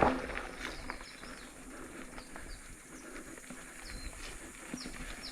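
Small birds chirping: a scattered series of short, high chirps over faint rustle and ticking from the bike.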